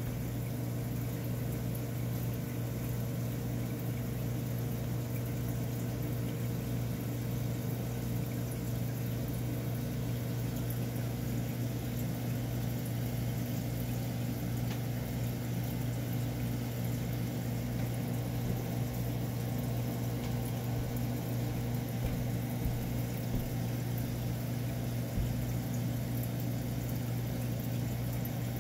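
Aquarium pump or filter running: a steady low hum with a faint watery hiss.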